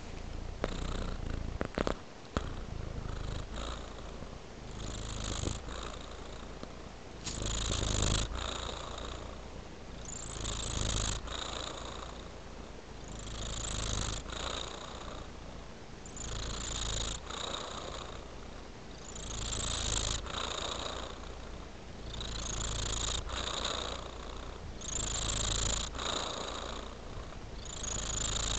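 Domestic cat purring steadily, the purr swelling and easing with each breath about every two and a half to three seconds. A few light clicks in the first few seconds.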